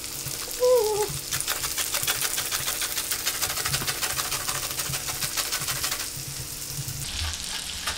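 Lemon rubbed back and forth over a flat handheld grater, grating zest in a quick, steady run of rasping strokes.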